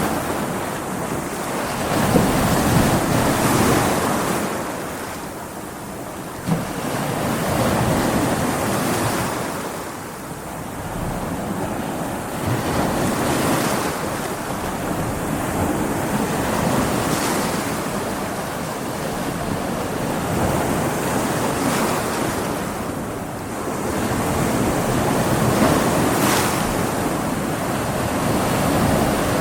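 Ocean waves breaking against rocks, the surf swelling and easing every few seconds, with wind on the microphone.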